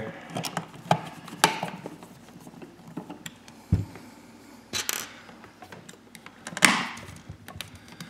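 Scattered small clicks and taps from hand-fitting a plastic outlet wall plate and its screws, with a low knock a little before the middle and two short scraping sounds in the second half, the later one the loudest.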